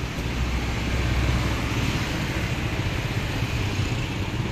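Street traffic: motorcycles and other vehicles passing close by over a steady low engine sound.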